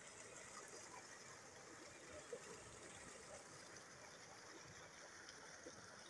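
Faint, steady rush of flood water spilling over a low weir into churning foam, with one brief soft knock about two seconds in.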